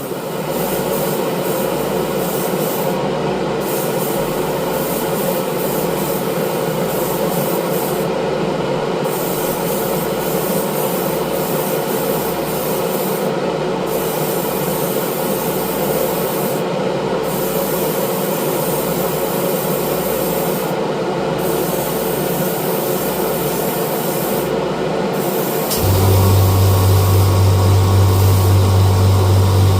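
Airbrush and its compressor running while brown paint is sprayed: a steady loud hiss over a motor hum, with a deeper, louder hum cutting in near the end.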